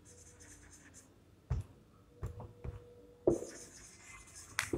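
Marker pen squeaking and scratching across a whiteboard in short writing strokes, in two spells, with a few light knocks in between.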